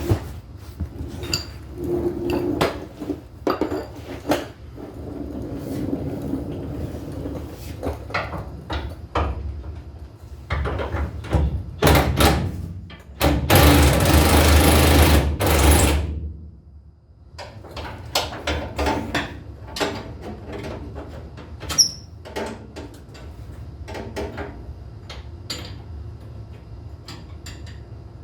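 Hand tools clinking and knocking against metal in irregular clicks, with a loud continuous burst of noise lasting about two and a half seconds in the middle, like a power tool running.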